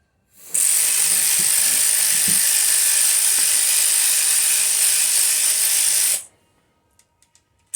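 Power ratchet running steadily for about six seconds with a loud, even hiss, spinning out the rocker arm bolts on a 5.3 LS V8 cylinder head. It starts abruptly and cuts off sharply, followed by a few faint clicks.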